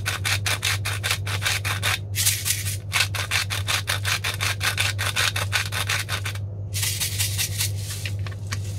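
Hand-twisted salt grinder cracking salt crystals: rapid rasping clicks, about seven a second, in three spells with two short pauses, stopping near the end.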